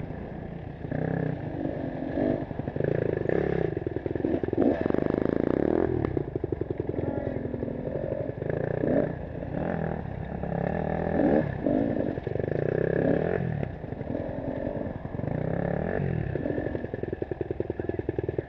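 Dirt bike engine revving up and down with the throttle while riding a rough trail, with the rattle of the bike over rocks and roots.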